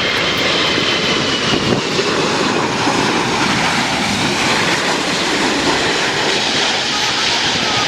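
Aircraft engine noise: a loud, steady rush with a faint high whine that slowly falls in pitch over the first few seconds.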